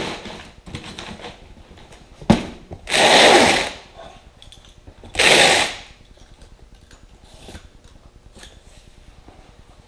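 A knock, then two rasping scrapes about two seconds apart, each under a second long, as a long cardboard box is dragged across a workbench top. Packing paper rustles briefly at the start.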